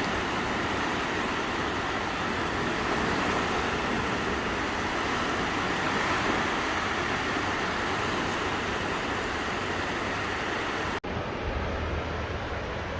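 Small, gentle sea waves washing onto a sandy beach, with wind, as one steady rushing noise. About eleven seconds in the sound cuts out for an instant and comes back duller, with more low rumble.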